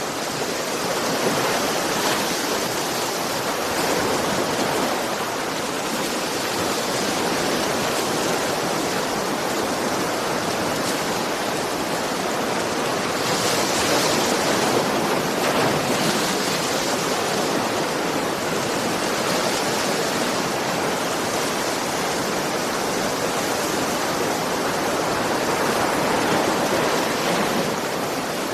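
Ocean surf: waves breaking and washing in a constant rush, swelling a little louder now and then, most of all about halfway through.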